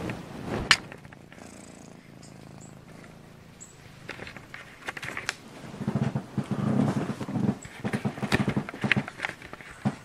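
A domestic cat purring with the microphone up against its fur, mixed with rubbing and knocks as the phone is moved about. A sharp knock comes just under a second in, and the densest rubbing and pulsing falls in the last four seconds.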